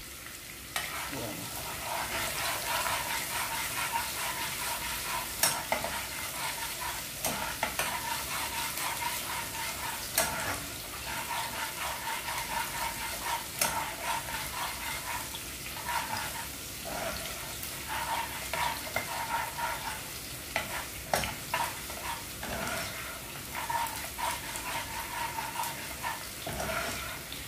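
Chopped garlic sizzling in hot oil in a saucepan as it fries toward brown, stirred with a metal spoon that scrapes and clicks against the pan now and then.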